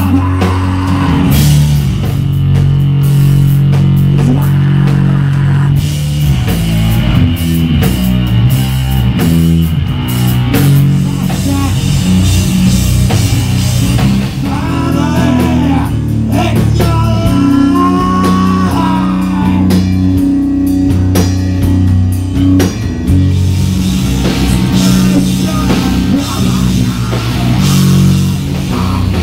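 A live heavy noise-rock band playing loud: drums and thick, distorted low droning notes, with a vocalist shouting into a microphone, most audibly about halfway through.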